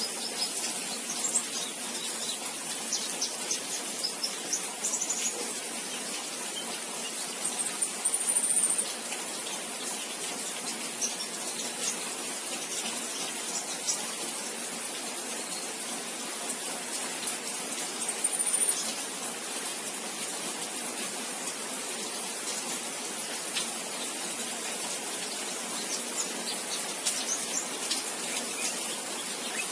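Juvenile white-rumped shama giving short, high, thin chirps now and then: the young bird's first practice at song (ngriwik). Two of the chirps, about a third and two thirds of the way through, are louder. A steady hiss sits under them.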